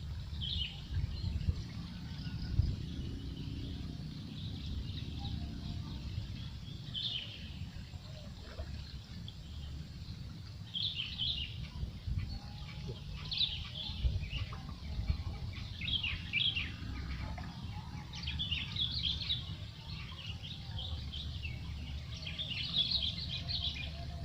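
A bird chirping in short clusters of high notes that come back every few seconds, over a steady low rumble with a couple of dull knocks.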